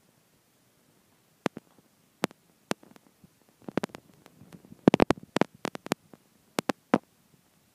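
Irregular sharp cracks and pops of baseballs striking leather gloves and bats, about a dozen in all, the loudest in a quick run about five seconds in.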